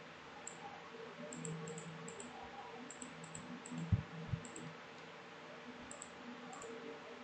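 Computer mouse clicks: faint scattered clicking, with two louder clicks about four seconds in, a fraction of a second apart, over a faint steady hum.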